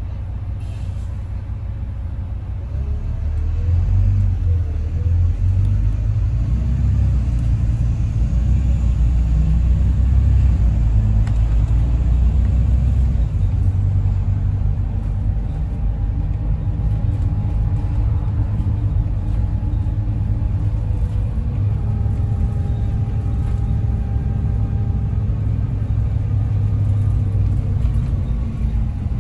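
Bus engine and drivetrain rumbling, heard inside the passenger deck while the bus is under way. It grows louder about three to four seconds in as the bus picks up, and a faint whine sits over the rumble in the later part.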